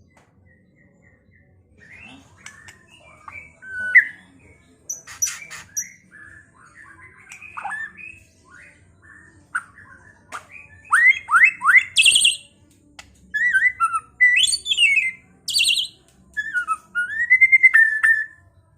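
White-rumped shama (murai batu) singing a varied song of whistled glides, quick rising sweeps and sharp chattering notes. It begins softly about two seconds in and grows louder past the middle, ending in a long warbling whistle.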